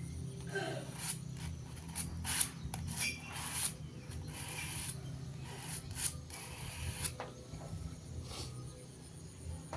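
Steel planer blade rubbed back and forth on P280 sandpaper, a run of irregular scraping strokes that thins out after about seven seconds.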